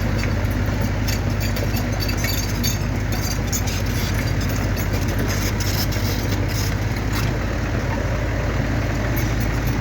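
An excavator's diesel engine running steadily with a constant low hum, with faint scattered clicks over it.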